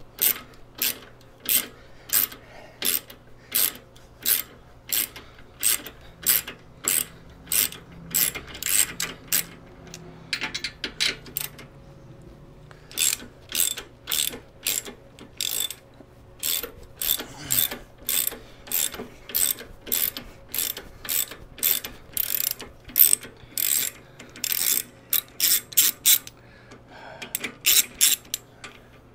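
Socket ratchet clicking in short back-and-forth strokes, about two a second, as it runs the nuts off the exhaust mounting bracket of a Harley-Davidson Softail, with a brief pause near the middle.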